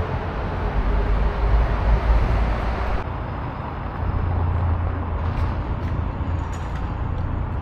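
City street traffic: a steady low rumble of road vehicles running past, the sound changing abruptly about three seconds in.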